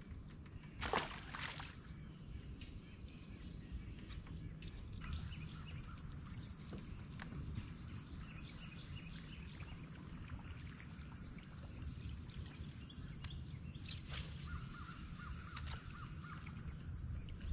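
Quiet outdoor ambience on the water with a short splash about a second in, then scattered faint bird calls.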